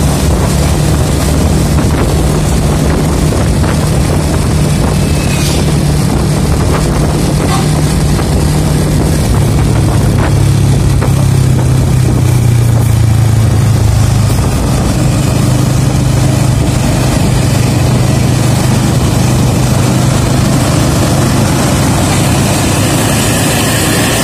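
Vehicle engine running under way with tyre and wind noise: a steady low drone that swells a little in the middle.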